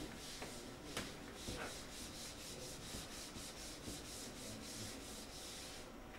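Eraser wiping a whiteboard in quick back-and-forth strokes, about four a second, with a light knock about a second in.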